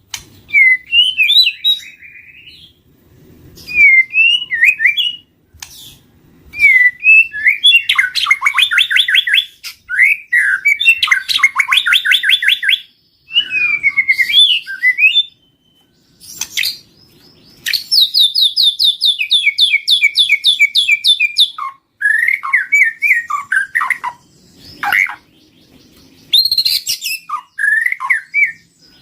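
White-rumped shama singing loudly: phrases of varied whistled notes alternate with long runs of fast repeated notes, about ten a second, broken by short pauses.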